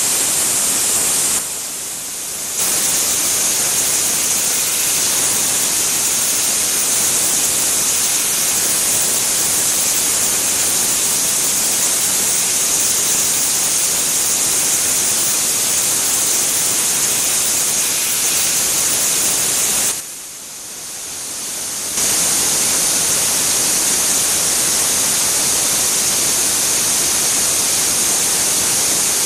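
Steady, loud hiss of a high-speed CNC milling machine cutting NAK80 mold steel with a small ball-nose end mill at 16000 rpm, with air or coolant blowing from nozzles at the cutter. The hiss drops away briefly about two seconds in and again about twenty seconds in.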